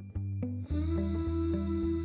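Gentle background music: a pattern of plucked notes gives way, under a second in, to a fuller, soft section with long held notes.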